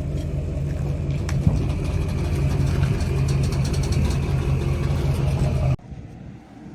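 An engine running steadily at a constant pitch, which cuts off abruptly near the end and leaves a much quieter background.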